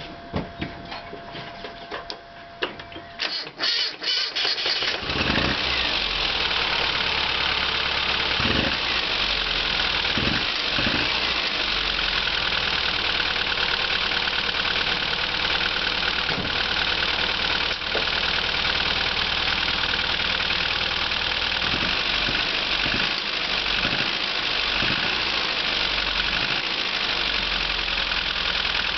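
Austin Mini 1300's A-series four-cylinder engine being cranked on the starter and catching about five seconds in, then running steadily at idle with the choke out: a cold start.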